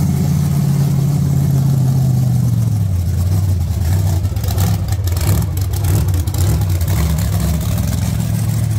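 A large vehicle engine running loud and low, its pitch dropping about three seconds in and then rising and falling unevenly.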